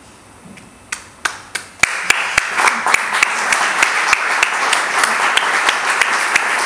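Audience applause: a few separate hand claps about a second in, then steady applause from about two seconds in, with individual close claps standing out.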